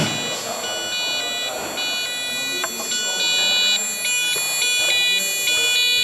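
Electronic beeping from an Arduino sound circuit: a buzzy square-wave tone with many overtones that shifts as a potentiometer is turned. About halfway through it breaks into a choppy on-off pattern.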